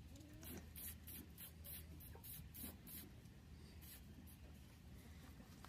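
Faint short hisses of an aerosol spray can, puffed about three times a second for a couple of seconds and then once more. It is being sprayed onto a gamecock's freshly trimmed comb.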